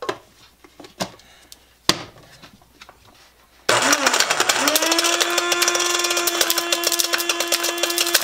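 A few knocks of the plastic blender cup being handled and seated, then about three and a half seconds in a small Hamilton Beach blender's motor starts, its whine rising quickly and then holding steady. Over it comes a rapid clatter of a large hard plastic cap being thrown about by the blade.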